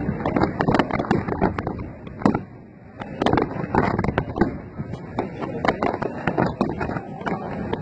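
Fireworks going off in rapid succession: a dense stream of bangs and crackles. It eases off briefly between about two and a half and three seconds in.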